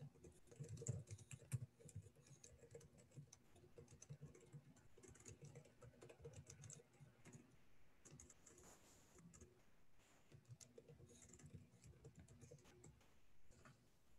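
Faint, irregular tapping of keys on a computer keyboard as someone types.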